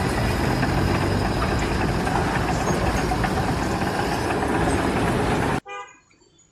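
Steady, loud machinery noise like a running engine, which cuts off abruptly about five and a half seconds in. A brief faint tone follows, then near silence.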